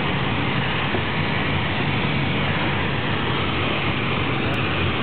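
Piper light airplane's piston engine and propeller running steadily, heard from inside the cabin as an even low hum.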